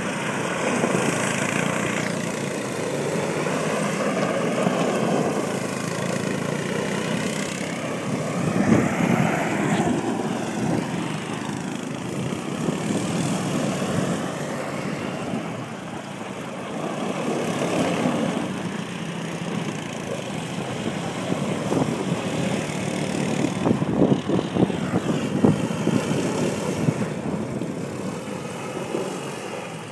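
Small youth ATV engine revving up and down as the quad spins donuts on loose dirt, its pitch rising and falling in waves and swelling louder several times.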